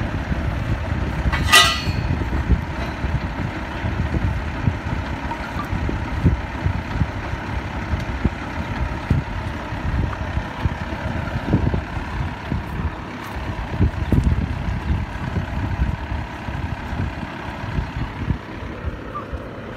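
Engine of a well-drilling rig running steadily with an uneven low rumble, while plastic casing pipe is lowered into the borehole. A brief high-pitched metallic squeal comes about a second and a half in.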